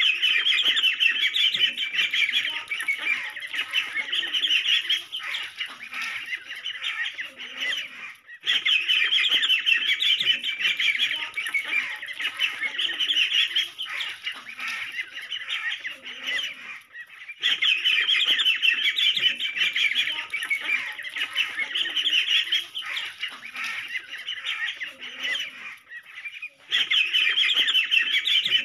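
A brood of ducklings peeping, many high-pitched chirps overlapping, broken by short pauses about every nine seconds.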